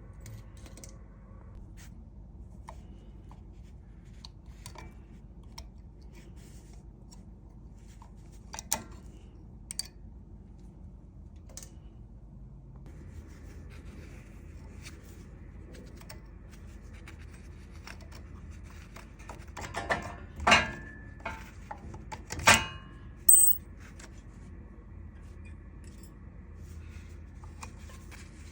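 Metal hand tools and brake parts being handled: scattered light clicks and clinks, then a cluster of sharper metallic clanks, some ringing briefly, about twenty seconds in.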